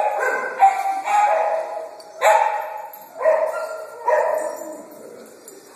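Several dogs howling together in repeated, overlapping drawn-out calls, starting again about every second, that die down near the end.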